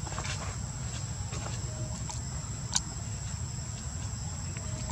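Outdoor ambience: a steady high-pitched insect drone over a low rumble, with a few sharp clicks, the loudest a little under three seconds in.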